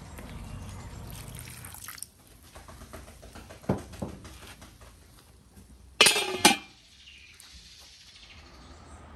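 Water poured from a clay jug into a wide metal pan of frying beef heart pieces, cutting off after about two seconds. A few light knocks follow, then two loud, ringing metal clanks about six seconds in as the domed metal lid is set on the pan.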